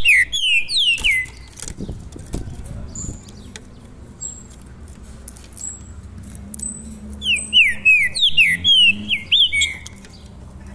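Caged songbird singing runs of quick, downward-slurred whistled notes: a burst at the start and another about seven seconds in, with faint short high chips between them.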